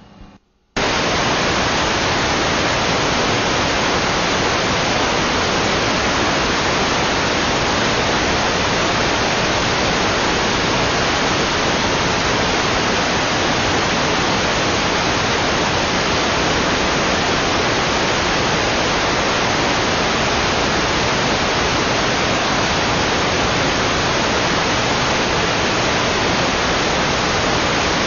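Loud, steady white-noise static that cuts in abruptly about a second in after a brief dropout and stays completely even: the hiss of a microphone audio channel with no signal, as from a wireless mic receiver once its transmitter is switched off.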